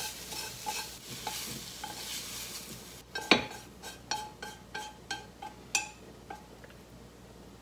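Long wooden chopsticks scraping and tapping a frying pan of scrambled egg, which sizzles faintly in the pan, still hot with the heat just turned off. About three seconds in, the sizzle stops and a string of sharp taps with a short ring follows, roughly one every half second, as the egg is pushed from the tilted pan into a bowl.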